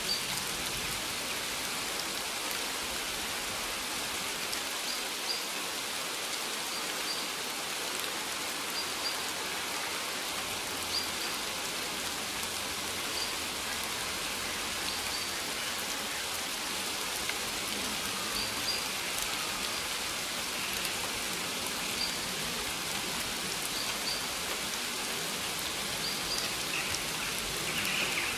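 Steady rain falling on maize plants, with faint short high chirps every second or two.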